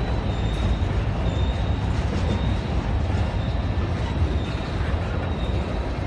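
Freight cars of a slow-moving CSX manifest train, tank cars and covered hoppers, rolling past with a steady rumble of steel wheels on the rails.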